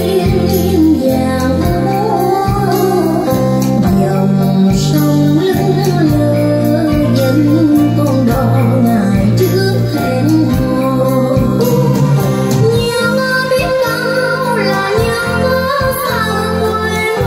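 A song with a woman singing over held bass notes, played back through a pair of JBL TLX 16 three-way loudspeakers (20 cm woofers, titanium tweeters).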